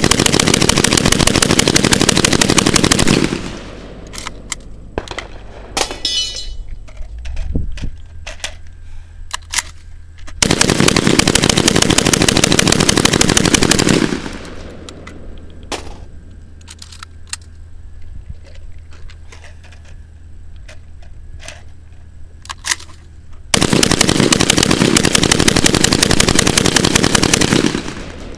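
Saiga 12 12-gauge shotgun firing three long rapid bursts, each one emptying a 20-round MD-20 drum without a stoppage. Between the bursts come scattered clicks and clatter as the empty drum is swapped for a fresh one.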